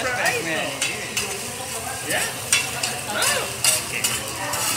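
Fried rice sizzling on a hot steel flat-top griddle while a chef's metal spatulas stir and chop through it, scraping and clicking against the griddle surface again and again.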